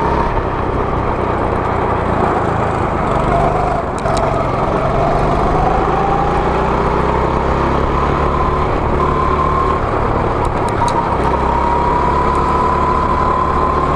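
Go-kart engine running under throttle on the move. Its note dips briefly about four seconds in, then climbs steadily as the kart speeds up.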